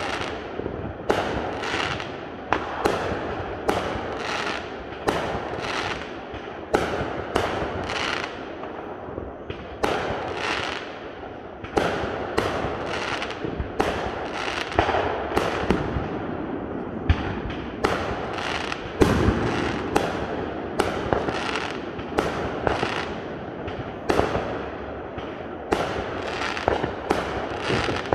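Aerial fireworks going off in a steady run of bangs, about one to two a second, each trailing off, with crackling between them.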